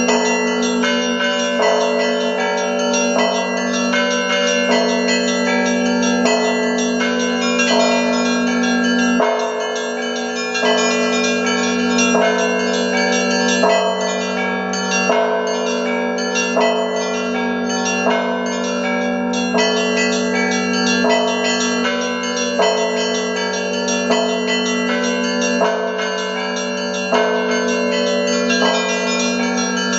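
Russian church bells rung as a zvon: a set of bells of different sizes struck together in a steady, repeating pattern, quick strokes on small bells over the long ringing of the larger bells.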